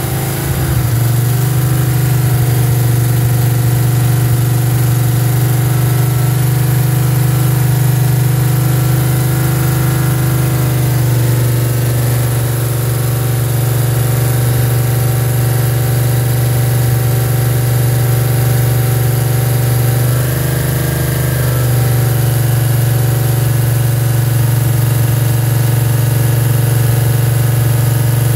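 Ford 428 Cobra Jet big-block V8 running on an engine run stand at a steady speed while it is being run in. The engine speed dips slightly about 11 seconds in and briefly rises around 21 seconds.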